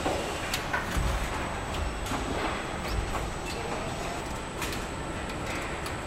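Car assembly-line noise: steady machinery hiss with a faint high whine, scattered metallic clicks and clanks, and a few low thumps.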